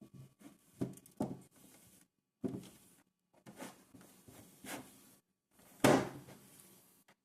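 Food containers and jars being handled and set down on fridge shelves: a string of irregular knocks and clunks with handling noise between, the loudest about six seconds in.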